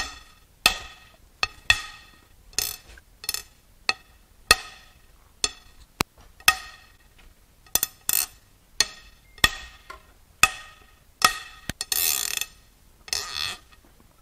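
Ratchet and socket on the cylinder-head bolts of a 2.3L Mazda MZR turbo four-cylinder, as the bolts are cracked loose and ratcheted out. It gives a string of sharp metallic clicks and cracks, each ringing briefly, about one to two a second, with a quick rattle of clicks near the end.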